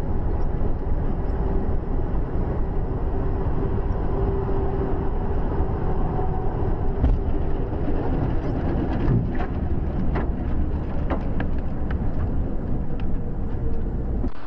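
Steady road and engine rumble of a vehicle driving at highway speed, picked up by the dashcam. In the second half come a string of light ticks and knocks.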